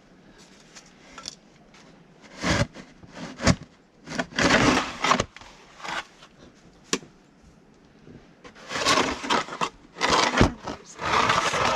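Snow shovel scraping and scooping heavy snow in a series of irregular strokes, with a few sharp knocks of the blade in between.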